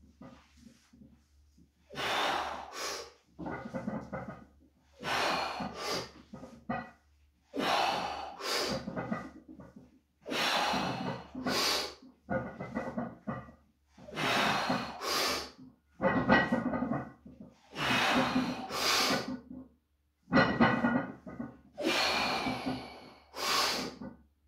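A weightlifter breathing hard and forcefully during a set of heavy barbell back squats: sharp breaths and forced exhales, some with a grunt, coming in pairs about every two to three seconds.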